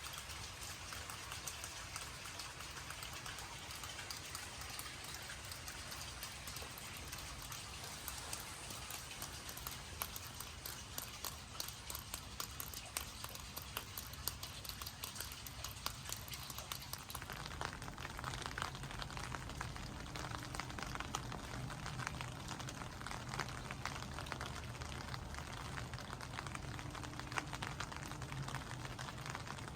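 Steady rain falling, with many separate drops ticking close by; the rain grows a little fuller about halfway through.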